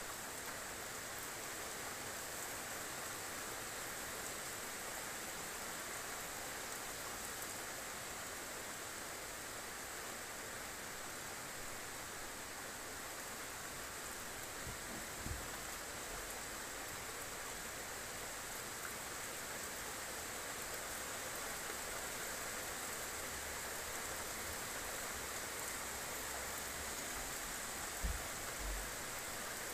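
Steady rain falling, an even hiss, with two brief low thumps, one about halfway through and a louder one near the end.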